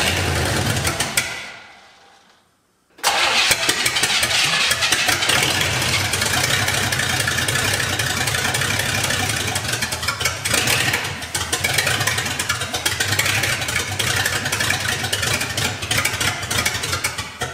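V8 engine of a 1968 Pontiac LeMans being cranked over on the starter without catching: a short crank that dies away, then after a pause a long crank of about fourteen seconds. It is not getting fuel, which the crew put down to a bad mechanical fuel pump.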